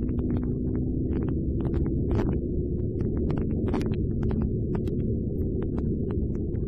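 Muffled low rumble of a motorcycle underway at road speed: engine and wind noise, steady throughout, with scattered faint clicks.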